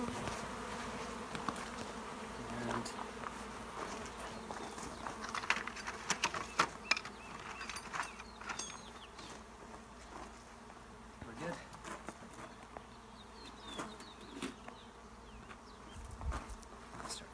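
A swarm of honeybees from a freshly installed package buzzing in a steady hum around a top bar hive, still agitated and not yet settled into the new hive. Scattered clicks and knocks sound over the hum, thickest about five to seven seconds in.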